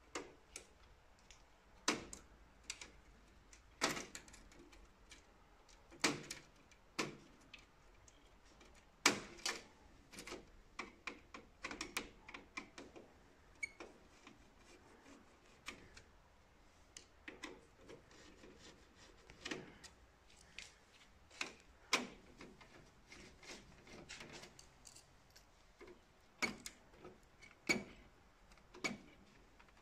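Irregular sharp clicks and light knocks of hand work with a screwdriver on a circuit board and its plug-in cable connectors inside a scanner's sheet-metal housing, about one or two a second and unevenly loud.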